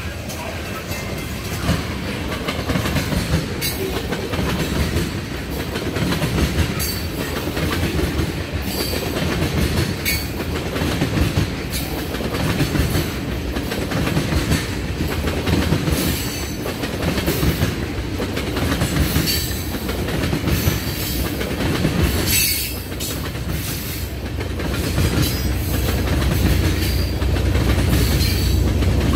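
Loaded ethanol tank cars of a freight train rolling past close by: a steady rumble and clatter of wheels on rail, with brief high-pitched wheel squeaks now and then. It grows louder near the end.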